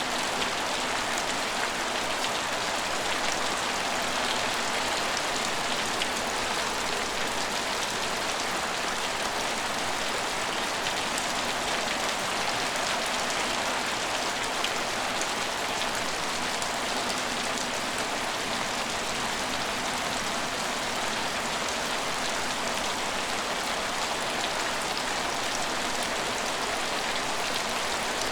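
Steady rain falling and pattering on hard surfaces, an even hiss of many fine drops.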